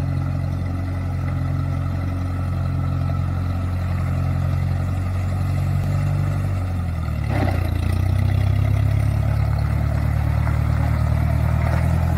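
1964 Massey Ferguson 135 tractor's engine running as it is driven along. About halfway through, its note dips briefly with a short clatter, then it runs on steadier and louder as the tractor draws near.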